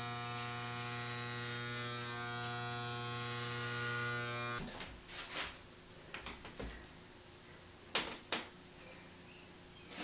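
Corded Wahl electric hair clippers buzzing steadily as they cut hair, switched off abruptly about four and a half seconds in. A few light clicks and knocks follow.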